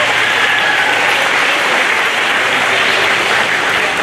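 Audience of students and parents applauding steadily.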